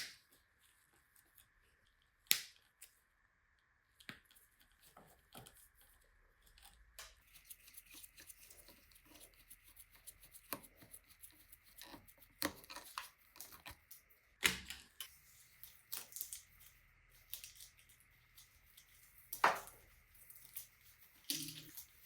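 Hand work on small parts: irregular sharp clicks and knocks with rustling and scraping between them, busier in the second half, with three louder knocks about two seconds in, near the middle and near the end.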